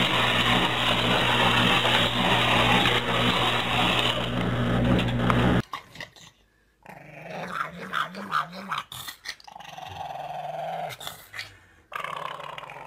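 For the first five seconds a loud, steady noise with a low hum. Then a pug growls low and wavering with its face in its food bowl.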